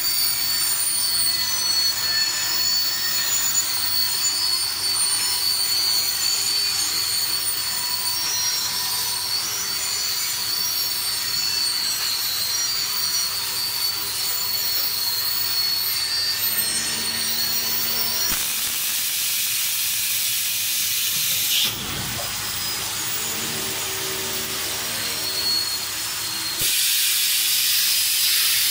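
Water jets from a row of spray nozzles hissing steadily onto an LED high bay lamp and a steel mesh conveyor in a waterproof spray test, with a thin high whine under the hiss for most of the time. The hiss drops somewhat about two-thirds of the way through and comes back louder near the end.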